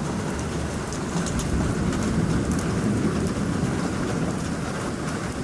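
Rain pouring steadily in a storm, a constant rushing hiss with faint scattered ticks of drops.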